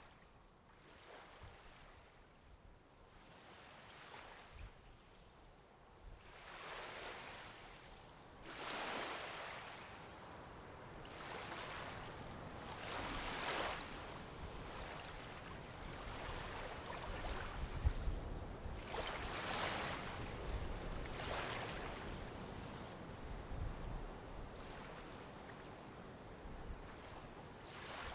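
Gentle surf on a sandy beach: small waves breaking and washing up, the hiss swelling and fading every few seconds.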